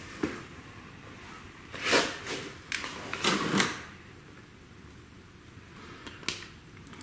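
Mechanical handling noises in a workshop: scattered clicks and clacks, with two louder scraping, clattering bursts about two and three and a half seconds in and a sharp click near the end, as the engine is turned to swing a dial indicator around the bellhousing bore.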